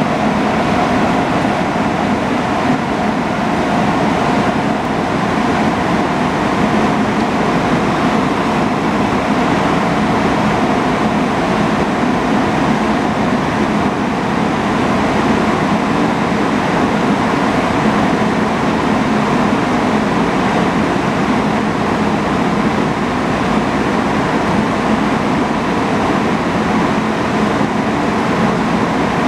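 SEPTA Silverliner IV electric railcar standing at the platform with its onboard equipment running: a loud, steady hum with a few held tones that does not change.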